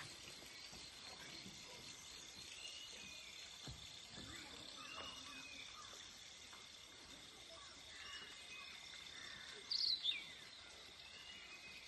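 Birds chirping: short arched chirps repeated every second or two, over a steady high insect drone. About ten seconds in comes one louder, sharp call that sweeps downward, the loudest sound here.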